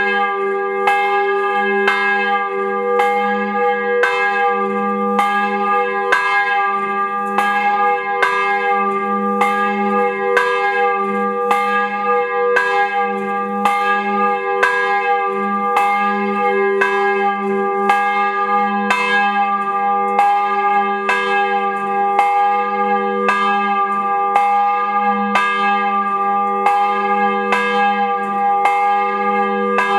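A large bell swinging in a freestanding steel frame, struck evenly about once a second, its ringing tone carrying on between strokes: a slow memorial toll for the dead.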